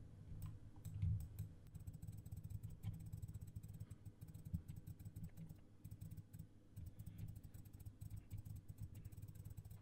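Faint, scattered clicking and tapping of a computer mouse and keyboard during photo editing, over a low steady hum, with a soft low thump about a second in.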